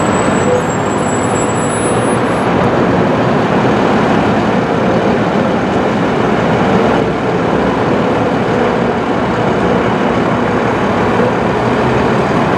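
Steady road traffic noise from running cars and trucks, with no single event standing out.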